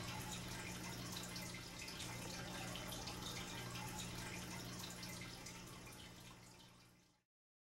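Faint water dripping and trickling in a small aquarium, over a steady low hum. It fades out and stops about seven seconds in.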